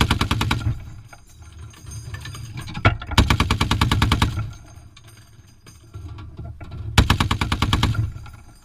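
Browning M2 .50 caliber heavy machine gun firing three bursts of evenly spaced rapid shots: a short one at the start, the longest about three seconds in, and a third near the end.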